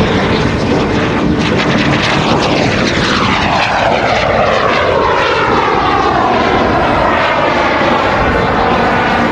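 Super Salto sailplane's small jet engine running as it passes by, a steady rushing whine whose pitch sweeps down from about three seconds in.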